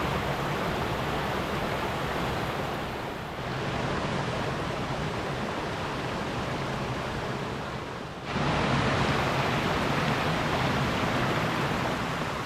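Creek water rushing over rapids and small falls, a steady wash of noise. It grows suddenly louder about eight seconds in.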